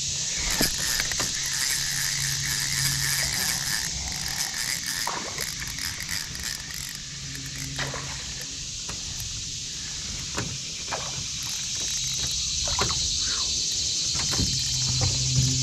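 Spinning reel being cast and cranked, with scattered clicks and ticks from the reel and a splash as the small beetle spin lure lands. Under it is a steady high hiss, and a low electric trolling-motor hum comes and goes.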